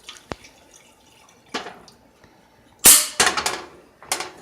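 Kitchen cookware being handled: a few sharp knocks and clanks of metal pots and utensils. The loudest strike comes a little under three seconds in, followed by a quick run of smaller clatters.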